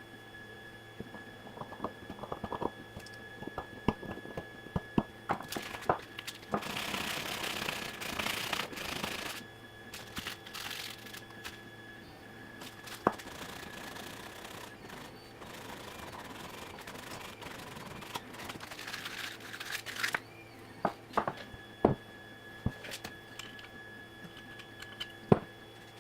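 Hand work on small parts at a workbench: scattered clicks and knocks with two stretches of scraping or rubbing, over a steady faint hum and whine. The sharpest click comes near the end.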